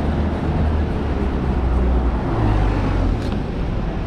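Road traffic passing close by, cars and black cabs, a steady rumble of engines and tyres.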